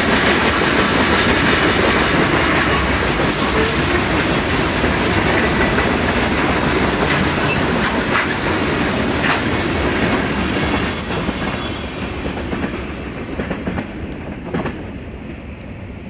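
Covered hopper cars of a freight grain train rolling past, the wheels clacking over the rail joints. The noise fades over the last few seconds as the end of the train goes by and moves away.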